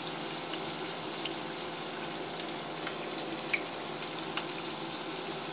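Cabbage manchurian balls deep-frying in hot refined oil in a pan: a steady sizzle with scattered small crackling pops.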